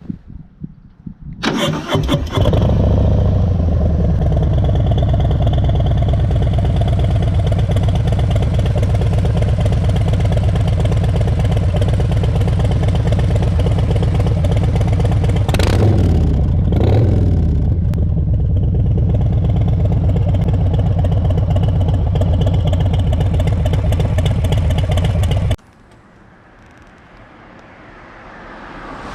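Harley-Davidson Sport Glide's Milwaukee-Eight 107 V-twin, fitted with a COBRA 909 2-into-2 full exhaust, cranks on the starter, catches and settles into a loud steady idle. It is revved briefly about two-thirds of the way through, then cuts off suddenly. A fainter sound swells near the end.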